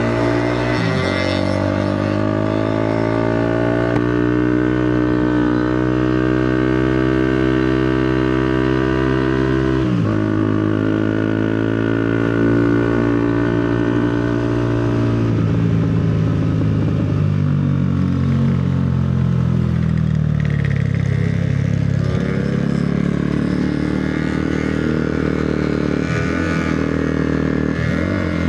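Motorcycle engine running under way, holding a steady pitch, with a sharp brief dip about ten seconds in, then falling and wandering in pitch through the second half before settling again.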